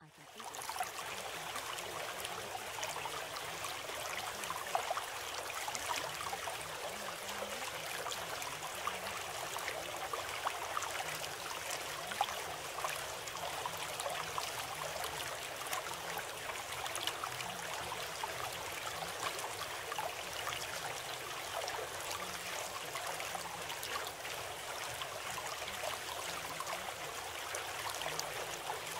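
Steady flowing water with many small sharp ticks in it, unbroken and even in level.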